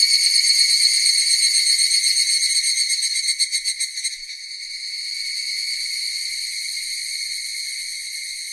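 Cicadas singing in a high-pitched, continuous buzz. It pulses rapidly and loudly for the first four seconds or so, then drops to a quieter, steadier drone.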